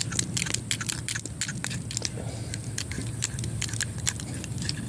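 Irregular light metallic clicks and taps, the kind made by a Swiss Army knife with aluminium alox scales being handled and its tools worked, over a steady low hum.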